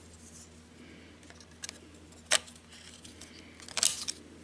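Light clicks and a brief clatter of small hard parts being handled: one sharp click about two seconds in and a quick cluster of clicks near the end, typical of handling a laptop RAM module and its plastic packaging.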